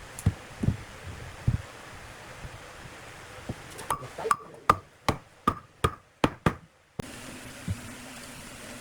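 Knocking on wood, a tool striking timber: a few dull thumps, then about eight sharp knocks a little under three a second.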